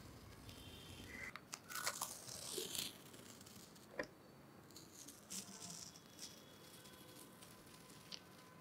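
Masking tape being peeled off the edge of pastel paper: faint crackling tears and paper rustles in short spells, with one sharp click about four seconds in.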